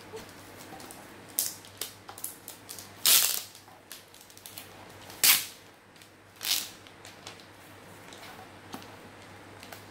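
Packaging being pulled off a smart bathroom scale: a few small crackles, then three sharp ripping, crackling bursts, the loudest about three seconds in and the others at about five and six and a half seconds.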